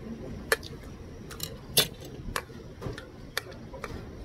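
Metal spoon clinking and scraping against a plate as the last of the fried rice is scooped up: a string of short, sharp clicks, the loudest a little under two seconds in.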